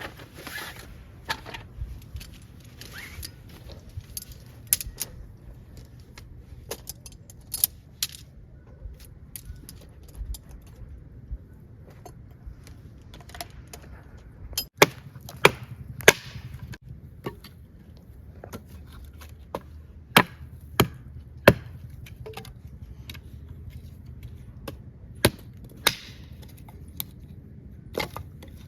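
Firewood being chopped and broken by hand: irregular sharp wooden knocks and snaps, with a run of the loudest blows about halfway through.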